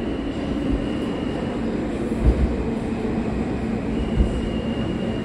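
R160 subway car running along the track, heard from inside: a steady rumble of wheels on rail with a couple of low thumps and a faint steady high whine.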